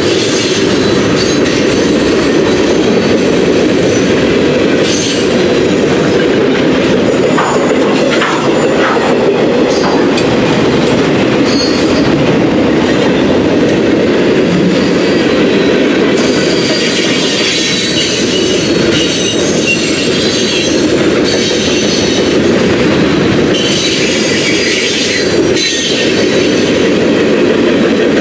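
Freight cars of a Norfolk Southern manifest train rolling past close by: a loud, steady rumble of steel wheels on rail, with high-pitched wheel squeals coming and going.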